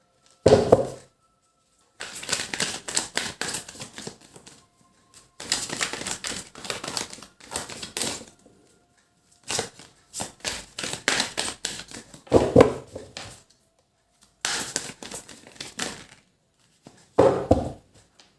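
Tarot cards being shuffled by hand: several bouts of rapid card clicks and flicks separated by short pauses, with a few duller knocks of the deck being handled.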